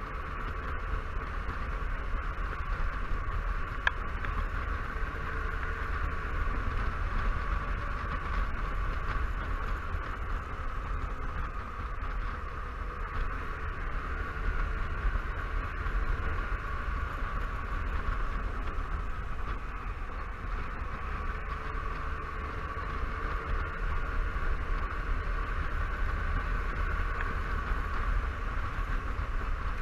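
Riding noise from a Honda Silverwing 600 maxi-scooter underway at a steady speed: a constant rush of wind over the microphone with the engine's drone under it.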